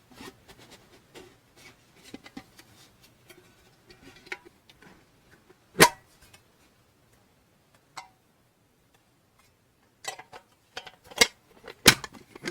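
Hand-handling of stationery items and their packaging: soft rustles and small clicks and taps, with a loud sharp click about halfway through and a quick run of clicks and taps near the end, two of them loud.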